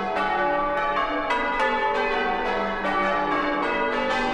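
Church bells being change-rung: bells struck one after another in an even rhythm of about three or four strokes a second, each ringing on into the next.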